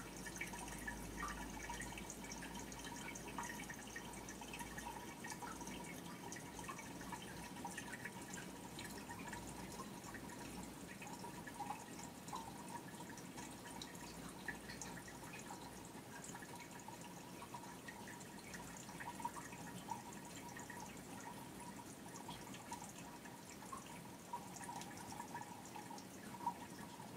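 Water trickling and splashing steadily into a shallow gravelly pool, a continuous patter of small drips and splashes with a few louder plops now and then.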